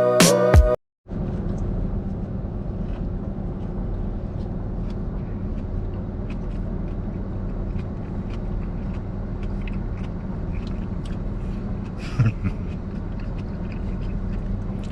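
A slide-guitar music sting ends about a second in, then a steady low engine rumble of an idling car heard from inside the cabin, with faint scattered clicks.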